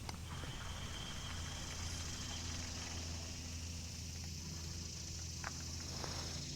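Garmin Force Current electric trolling motor running with a steady low hum, with a steady high hiss above it and a few faint ticks.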